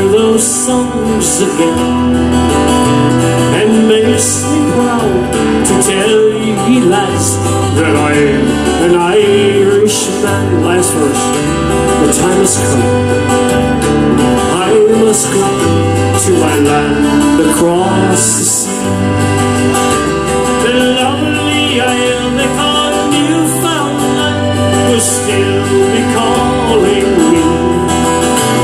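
Background music: an upbeat Newfoundland folk-style tune with plucked guitar and a steady, regular bass line under a moving melody.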